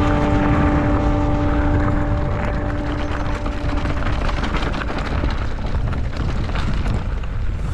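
Riding an e-bike on a trail: wind rumbling on the microphone with tyre noise and many small clicks and rattles from the bike over rough ground. Background music fades out over the first two seconds or so.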